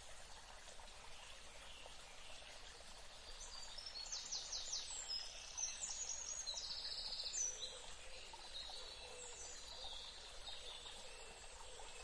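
Shallow rocky stream running steadily, with songbirds singing over it. A quick series of high notes comes about four seconds in, then a rapid trill around six to seven seconds, with scattered chirps afterwards.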